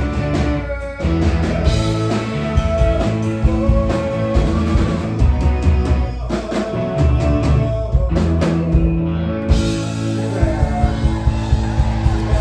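Live rock band playing electric guitars, bass guitar and drums, with a man singing lead into a microphone. In the last third the band settles into long held notes.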